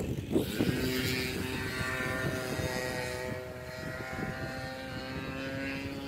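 Gas two-stroke engine and propeller of a 33cc Ultra Stik RC airplane in flight, running at a steady throttle with an even drone.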